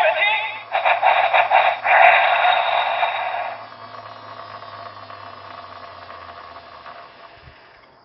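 Auldey DX Armor Hero Tornado toy belt playing its electronic sound effects through its small speaker: a voice calls out an attack name over music and effects. About three and a half seconds in it drops to a quieter sound effect that fades away over the next few seconds.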